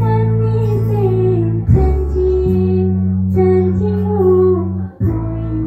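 A woman singing into a microphone through a PA, over backing music of long held bass chords that change every second or so. The music drops out for a moment near the end, then resumes.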